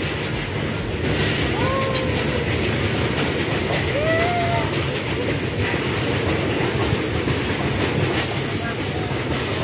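Freight train of covered goods wagons rolling past on the track beside the platform: a steady, loud rumble and clatter of steel wheels on rails.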